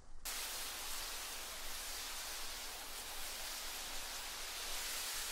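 A steady, even hiss of ambient noise that starts suddenly just after the beginning and holds unchanged.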